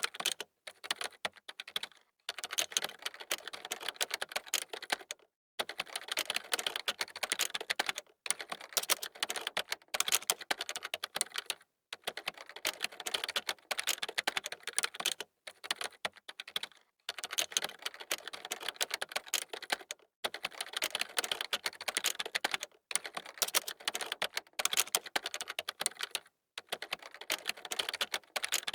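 Fast typing on a computer keyboard: dense runs of key clicks lasting a few seconds each, broken by short pauses.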